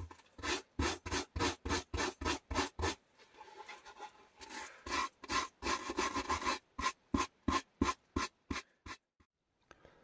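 A stiff hand brush scrubbing back and forth over a carved, burnt wooden backgammon board, in quick rhythmic strokes of about three a second with a denser run in the middle. The board is being brushed to lighten its dark surface.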